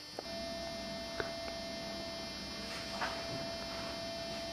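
Steady electrical hum with a thin, even whine held on one note, setting in just after the start; one faint tick about a second in.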